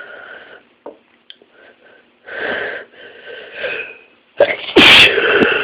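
A person's catching breaths building up, then one loud sneeze near the end.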